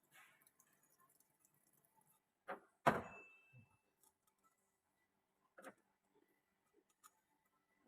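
Mostly quiet, broken by a few sudden knocks: two close together about two and a half and three seconds in, the second the loudest and leaving a short high ring like struck metal, another near the middle of the second half, and a small click near the end.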